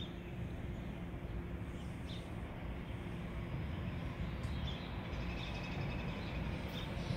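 GE Silverliner IV electric multiple-unit train approaching, a low rumble growing louder over the last few seconds. Birds chirp faintly.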